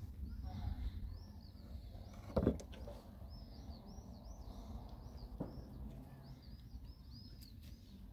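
A bird chirping a quick run of short, arched notes over a steady low rumble. A single thump about two and a half seconds in, and a fainter one about five seconds in.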